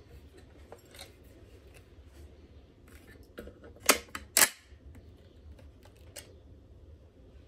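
Lithgow Model 1A single-shot bolt-action .22 rifle being handled: light clicks and rattles from the action, then two sharp metallic clacks about half a second apart a little past the middle as the bolt is worked.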